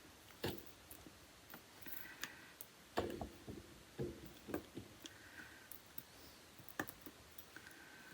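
Scattered small clicks and light taps of nail-art tools and pieces being handled on a work surface, about a dozen in all, the loudest a few knocks around three to four seconds in and another near seven seconds.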